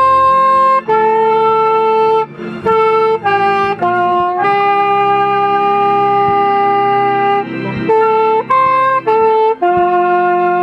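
Instrumental music: a single melody of held notes, some long and some short, over a low steady accompaniment.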